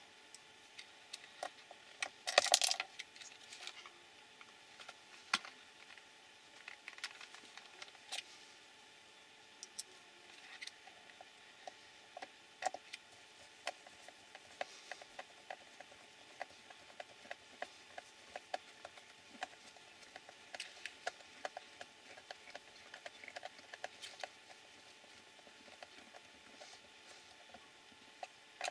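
Small clicks, taps and light clatter of plastic RC car chassis parts and hand tools being handled and fitted, with a louder clatter about two seconds in, over a faint steady hum.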